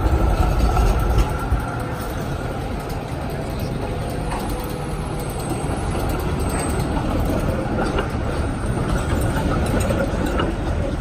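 B-class articulated tram passing close by with a heavy low rumble, which drops away suddenly about a second and a half in, leaving steady street and traffic noise with trams moving at a distance.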